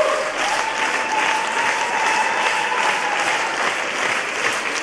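Concert-hall audience applauding steadily after a performance. A single long, high held tone sounds over the clapping, rising at first and then staying level until about three and a half seconds in.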